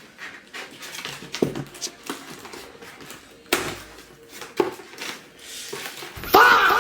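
Toy packaging being handled and unpacked: irregular clicks, taps and rustles, with a louder knock about three and a half seconds in. Near the end a musical sound effect comes in.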